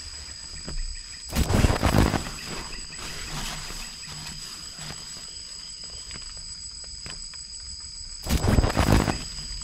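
Steady high-pitched chorus of night insects, broken twice by a loud, noisy burst about a second long, once a second or so in and again near the end.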